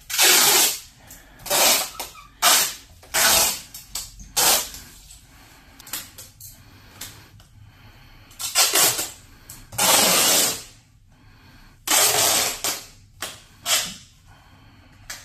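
Red adhesive sealing tape being pulled off its roll in about a dozen short, loud, hissing pulls at irregular intervals, and stuck across a door to seal it.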